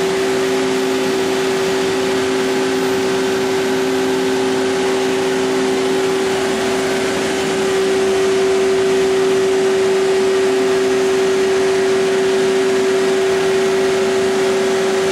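Powered-up DMG Gildemeister NEF600 CNC lathe running at standstill: a steady machine hum and fan-like rush with a constant mid-pitched whine, a little louder about halfway through.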